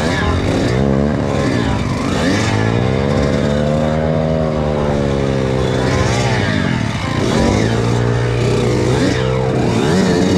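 Kawasaki KX85 two-stroke dirt bike engine being ridden with the throttle worked up and down. It holds a long high rev from about three seconds in, drops off around the sixth second, then revs up again near the end.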